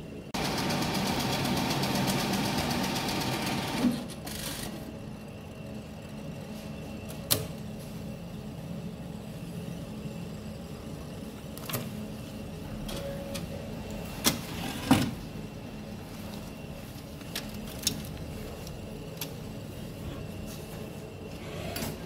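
A bank ATM's internal mechanism running with a fast, even rattle for about three and a half seconds, followed by a handful of short, sharp clicks spread through the rest of the time.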